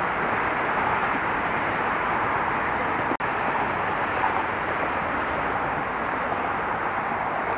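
Steady hiss of road traffic, an even wash of tyre and engine noise with no single vehicle standing out, broken by a brief dropout a little after three seconds.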